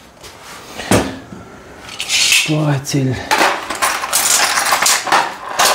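Metal hand tools clattering and rattling in a plastic toolbox as a hand rummages through it, searching for a putty knife: scattered clinks at first, then a busy run of rattling in the second half.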